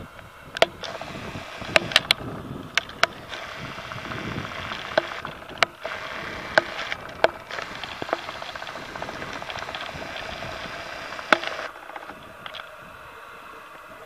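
Footsteps and handling noise on a trail: irregular sharp clicks and snaps over a steady rushing background, which drops lower about two seconds before the end.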